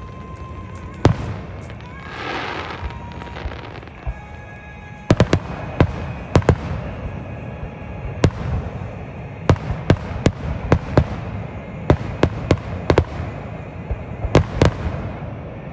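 Aerial fireworks shells bursting over a steady low rumble: a sharp crack now and then at first, a short hiss about two seconds in, then a rapid run of cracks and bangs from about five seconds in.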